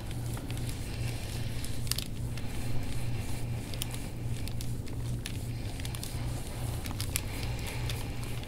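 Skin-friction crackles and clicks from deep massage strokes on the back, over a steady low hum.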